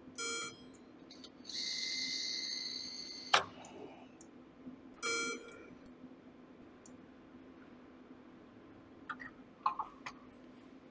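Electronic beeps at an assembly workstation: a short beep, a longer tone that ends in a sharp click, then another short beep, with a few light clicks near the end over a faint steady hum.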